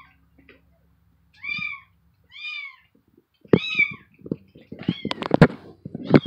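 A cat meowing three times, about a second apart, each call rising and then falling in pitch. Then a rapid run of knocks and thumps fills the last few seconds, the loudest about five and a half seconds in.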